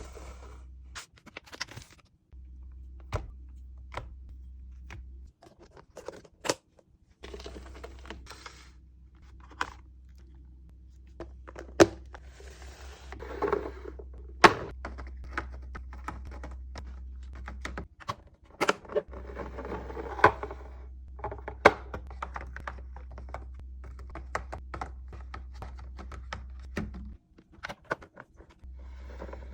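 Food containers, jars and packages being set down and arranged on refrigerator shelves: a long run of separate knocks and clicks with stretches of rustling, over a steady low hum that drops out a few times.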